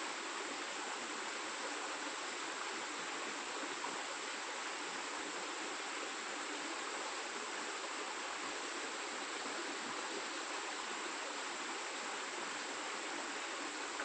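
Cascading creek water rushing steadily, an even hiss that does not change.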